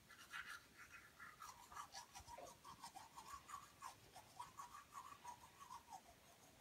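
Manual toothbrush scrubbing teeth: faint, quick scratchy strokes, several a second.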